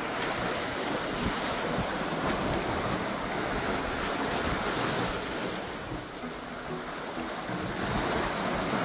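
Small sea waves washing in over shoreline rocks, with wind on the microphone. A steady rushing that eases a little about six seconds in and swells again near the end.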